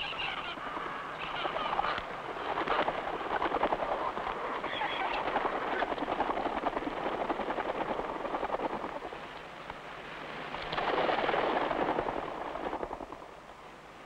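A dense chorus of short-tailed shearwaters (mutton birds) calling at a breeding colony: many overlapping crackling, cackling calls that swell about ten seconds in and thin out near the end.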